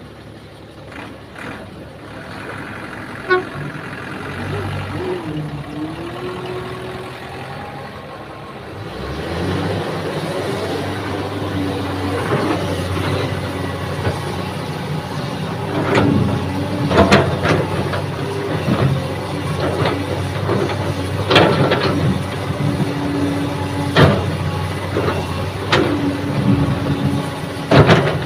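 Kobelco hydraulic excavator's diesel engine running steadily, louder from about a third of the way in, with sharp clanks every few seconds while it digs and loads soil.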